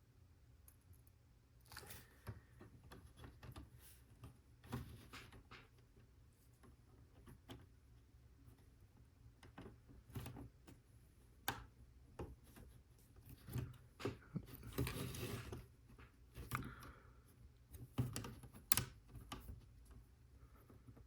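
Lego Technic plastic pieces being handled and pressed together: scattered faint clicks and taps, with a brief rustle about fifteen seconds in.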